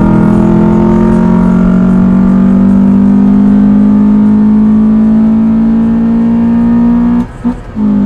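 Honda Accord's four-cylinder engine pulling hard under acceleration, its note climbing slowly in pitch as the revs rise. The note breaks off for a moment about a second before the end, then picks up again.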